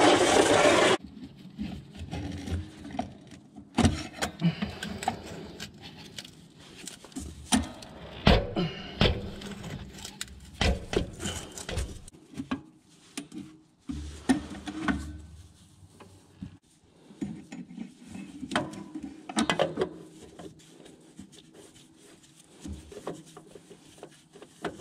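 Hand-work noises at a tractor's hydraulic filter: scattered knocks, clicks and clinks with rubbing between them, as a gloved hand works the spin-on filter and its housing. A loud rush of noise lasts about the first second.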